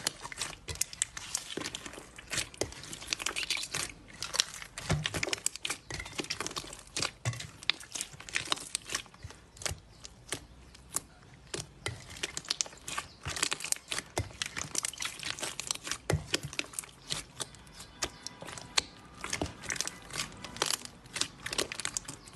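Slime being pressed and squeezed by hand, giving a dense, irregular run of small crackles and pops.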